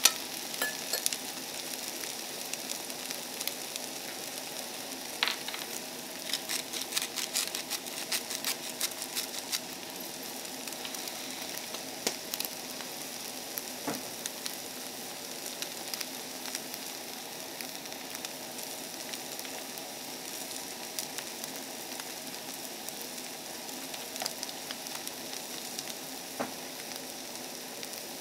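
Sliced carrots and other vegetables sizzling in oil in a frying pan on a portable butane gas stove: a steady sizzle with scattered pops and crackles, thickest a few seconds in.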